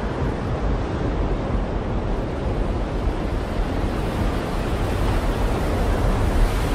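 Wind buffeting the microphone on a ship's open deck: a steady rough noise with a heavy low rumble, without a clear impact.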